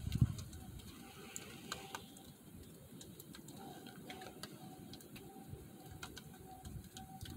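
A distant, repeated bark-like call: short, evenly spaced notes at about two a second, keeping a steady pace from one spot. A low thump sounds right at the start, with faint clicks scattered through.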